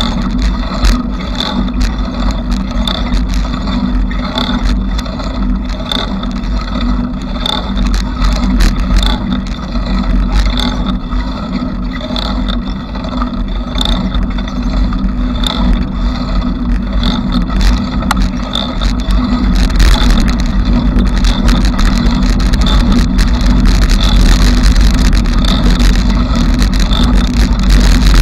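Ride noise of a bicycle being pedalled: a steady low rumble with rattling, and a light high tick repeating about once a second. It gets louder about twenty seconds in.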